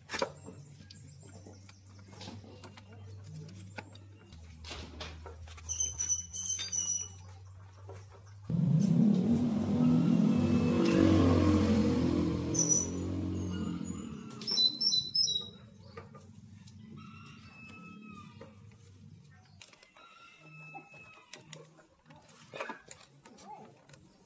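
A loud burst of mechanical noise for about five seconds partway through, over a low steady hum, with short bird chirps before and after it.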